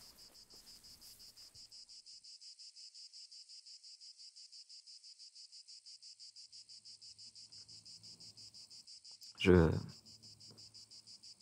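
Crickets chirping steadily at night in a fast, even pulse. About nine and a half seconds in, a brief loud sound slides sharply down in pitch over the chirping.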